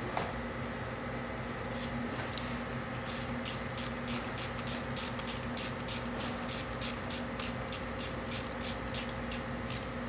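Ratchet wrench clicking rapidly and evenly, about three to four clicks a second, starting about three seconds in, as the Sea-Doo Spark engine's crankshaft is turned over by hand to line up the timing marks.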